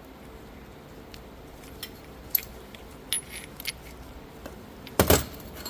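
Steel transmission gears and bearings clinking as they are handled and set down: a few light metallic ticks, then a louder clatter about five seconds in.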